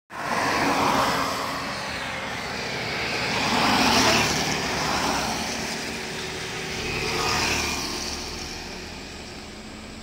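Traffic passing on a road: vehicles' tyre and engine noise swells up and fades away several times.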